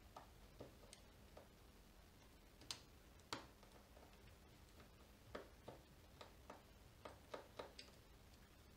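Faint, irregular small clicks and ticks of a precision screwdriver and tiny screws against a smartphone's metal frame during screw removal, with two sharper clicks about three seconds in.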